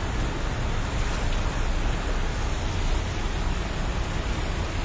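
Steady street noise of a road jammed with standing traffic: an even hiss over a low rumble, with no single engine or event standing out.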